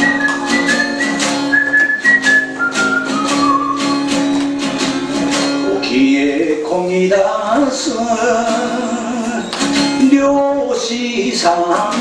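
Music: a strummed guitar keeps a steady beat while a high melody steps downward, and a singing voice comes in about halfway through.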